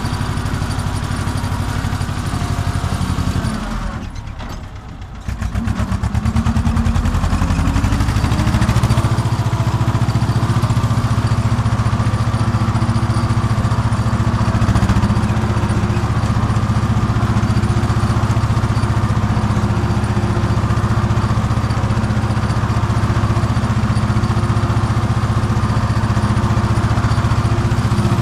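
Farm tractor's diesel engine heard from inside the cab while pulling a ridger. It runs steadily, drops briefly to a lower, quieter note about four seconds in, then climbs over a couple of seconds back to a steady, louder working speed.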